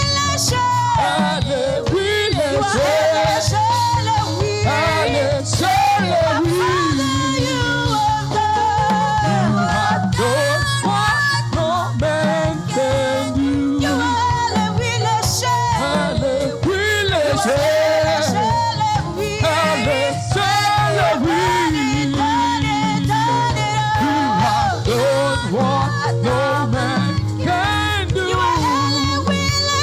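Live gospel praise music: church choir voices singing long, sliding melodic lines over a steady band accompaniment.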